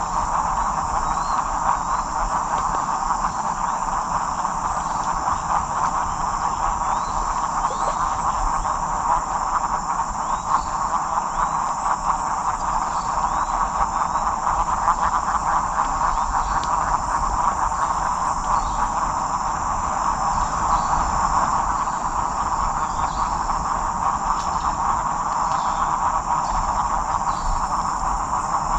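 Continuous rainforest chorus of insects and frogs: a steady high insect buzz over a dense, unbroken mass of mid-pitched calls, with small chirps dotted through it.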